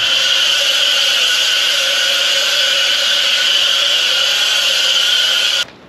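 Pressure washer lance spraying water onto a lorry cab: a loud, steady hiss that cuts off sharply near the end.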